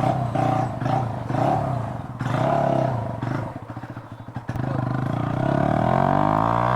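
Bajaj Pulsar NS125's single-cylinder engine running, its throttle blipped several times so the revs rise and fall, then revved up steadily and held high near the end.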